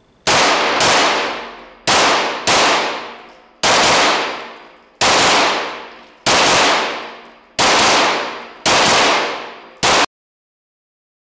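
Chiappa CBR-9 Black Rhino 9 mm Luger semi-automatic carbine firing a string of rapid shots, mostly in pairs about half a second apart, each shot ringing on with a long echo off the walls of an indoor range. The sound cuts off abruptly near the end.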